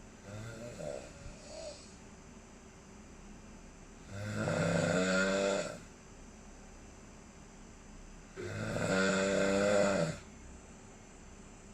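A person snoring in sleep: a softer breath near the start, then two long, loud snores about four seconds apart, each with a buzzing, rattling tone.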